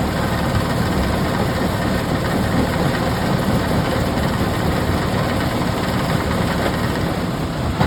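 Heavy machinery engine running steadily, a continuous low rumble with no distinct strikes.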